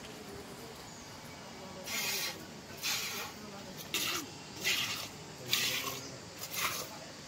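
Squirts of milk from a cow's teat, milked by hand, hissing into a plastic jug. They come about once a second, starting about two seconds in.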